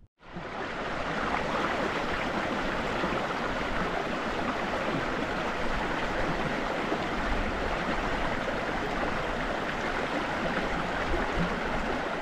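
Rushing water of a stream, an even, steady hiss that starts just after a brief silent gap at the very beginning.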